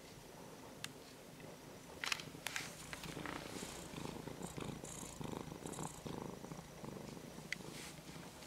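Domestic cat purring close to the microphone, a pulsing rumble that sets in about three seconds in and carries on. It follows a few sharp clicks, the loudest about two seconds in.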